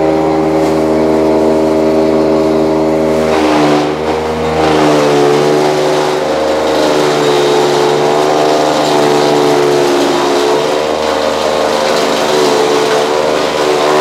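Motor-driven chaff cutter running. From about 3.5 s its pitch sags and wavers as fodder grass is fed in, with a loud rasping chopping noise over the motor's hum while it is under load.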